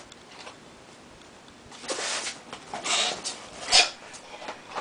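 Packaging being handled: a few short rustling, scraping bursts as a small accessory box is taken out of a styrofoam shipping box, the loudest just under four seconds in.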